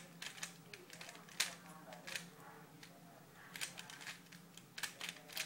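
Plastic speed cube being turned quickly by hand during a solve: irregular clacking clicks of the layers, with a quieter pause in the middle and denser clicking near the end. The cube has been tightened a little too much.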